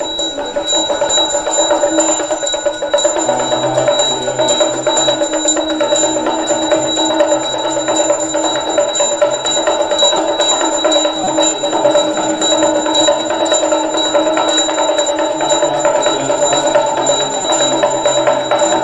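Conch shell trumpet blown in one long, steady note, with a small hand bell rung rapidly and continuously over it.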